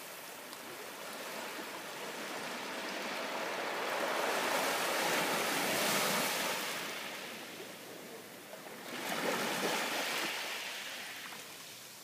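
Sea waves washing onto the beach: a steady hiss of surf that swells to a peak around the middle, ebbs, then surges again near the end.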